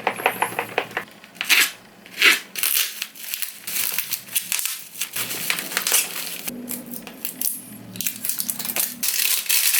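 Packaging being handled and opened by hand: a run of crinkling, crackling and tearing with sharp clicks.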